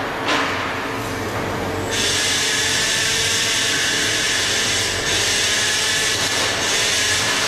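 Steady machine noise from a CNC lorry-beam punching line, with a single click just after the start and a louder hiss coming in about two seconds in.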